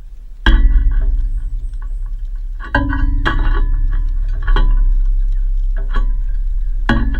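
Background music of slow plucked guitar notes, each one struck and left to ring out, over a steady low bass.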